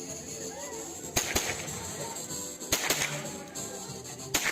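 Sharp cracks of a CZ 512 Tactical semi-automatic .22 LR rifle firing, three pairs of shots in quick succession about every second and a half, over a steady music backing.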